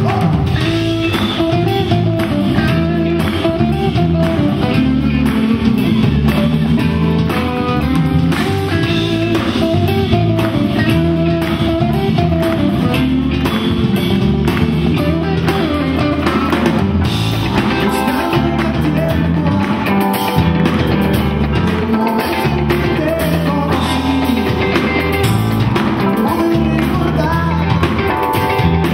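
Live worship rock band playing a song's opening: electric guitars, bass guitar and drum kit keeping a steady beat, with a singer coming in near the end.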